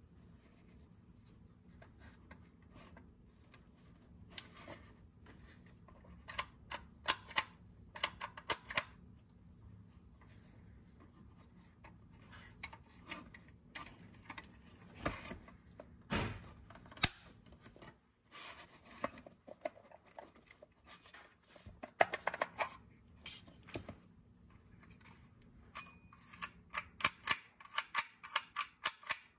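Handling clicks and knocks from a vintage Imperial 127 Reflex plastic box camera as it is turned over and its back is opened, with a quick run of clicks near the end.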